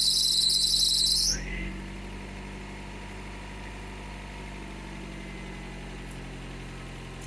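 2001 Honda Prelude's four-cylinder engine running just after a start, with a loud high-pitched whine that the owner calls belt whine. About a second in the whine cuts off and the engine settles to a steady, quieter idle.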